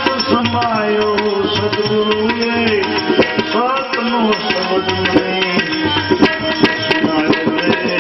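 Instrumental passage of a devotional bhajan: tabla keeping a steady rhythm under a melody line that glides up and down.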